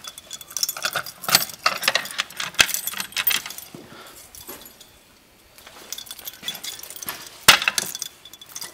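Clinking and jangling of small hard objects being handled, in a quick irregular string of clicks, with a quieter gap around the middle and one sharp click about seven and a half seconds in.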